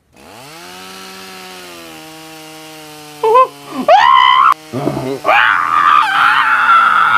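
A chainsaw starts up and runs steadily, its pitch rising at first. A voice screams twice, about three and four seconds in, and then the chainsaw revs louder near the end.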